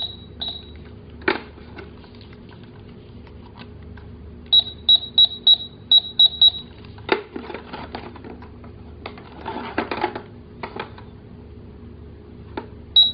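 Battery-powered toy cash register beeping: short high beeps, with a quick run of about seven in the middle at roughly three a second. In between comes plastic clattering and a few knocks as the toy is handled.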